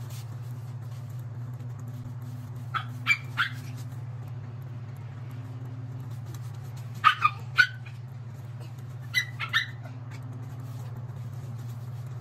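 Small dog, a Pomeranian, barking in three groups of three quick, high-pitched barks, a few seconds apart, over a steady low hum.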